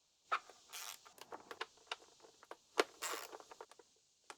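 Hands working on an outboard motor's plastic cowling: scattered clicks and knocks with two short scrapes, as the lower cowl is worked loose.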